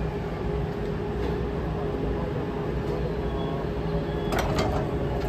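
Two electric train cars slowly closing in on each other to couple: a steady low rumble with a faint constant hum, and a few sharp clicks a little over four seconds in.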